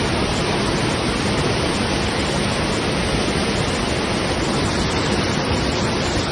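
Steady rushing of a river swollen by flooding after heavy rain.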